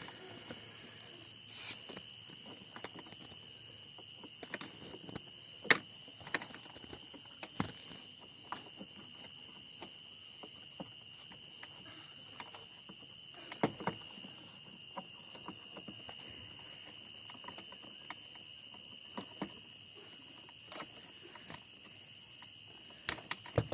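Steady high-pitched insect trilling, with scattered small clicks and knocks from hand work on a car's wiring, the sharpest about six seconds in and again near fourteen seconds.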